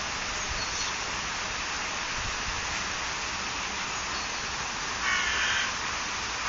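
Steady rushing background noise, with one short, harsh, caw-like bird call about five seconds in.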